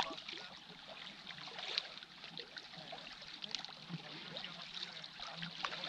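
Small sea waves lapping and trickling among shoreline boulders, with many small irregular splashes, and a sharp click right at the start.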